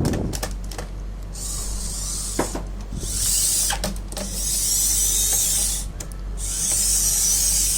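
A few sharp plastic clicks, then repeated stretches of high scraping and rubbing, about a second each, as the parts of a Canon LiDE 120 flatbed scanner are handled while it is taken apart.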